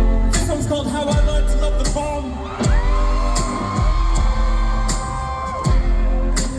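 Live pop band playing through a concert PA, with singing and deep bass notes that slide downward in pitch about every second or so, and a high note held for about three seconds in the middle.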